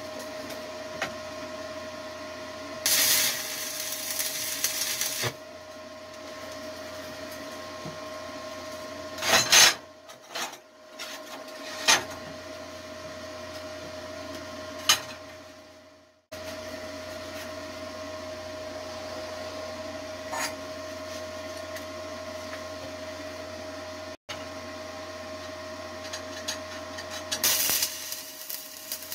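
Stick welding with 3/32-inch 6013 rods on 1/8-inch steel plate, laying tack welds. The arc crackles for about two seconds a few seconds in, strikes briefly in a few short sharp bursts mid-way, and starts up again near the end, all over a steady electrical hum.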